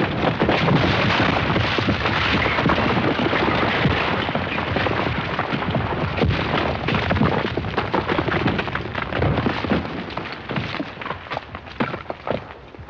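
Destruction sound effect: a long crash of breaking, tumbling debris, many impacts running together, that slowly dies down over the last few seconds.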